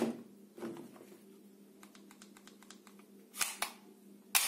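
Plastic toy pump-action shotgun being picked up and handled: light plastic knocks, a run of small rapid clicks, then a few sharper clicks near the end.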